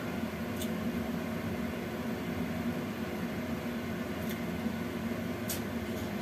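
Steady low hum and hiss of a lit gas stove burner under a covered wok whose contents are steaming, with a few faint ticks.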